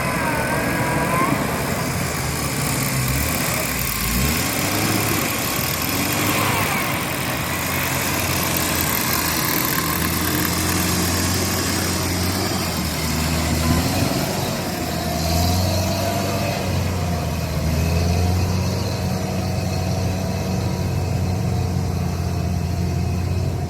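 Motor vehicle engine running steadily, a low, even hum.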